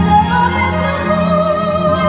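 Live performance by a female singer and a full orchestra: a long held sung note with vibrato over sustained low orchestral notes, heard from the audience in a large arena.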